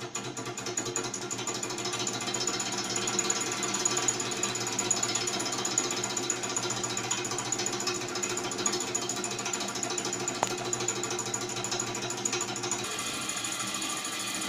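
Small brass Stirling engine running under flame heat, a fast, steady mechanical clatter that picks up speed over the first couple of seconds, its flywheel driving a small generator.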